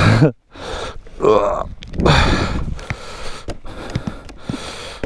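A rider breathing hard, with gasps and heavy breaths close to the microphone. The loudest comes about two seconds in, after a brief voiced sound at the very start.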